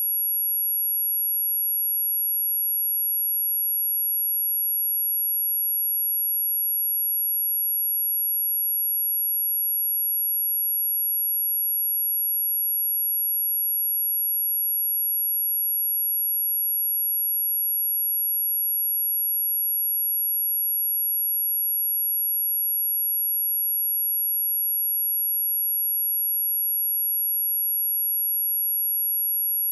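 A steady, unchanging high-pitched test tone: a pure 11347 Hz sine wave, one single pitch with nothing else.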